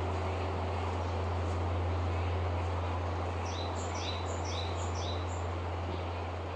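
Low hum of the great bronze temple bell (bonsho) of Zojoji lingering after a strike and slowly fading. A small bird chirps a quick run of about seven high notes midway.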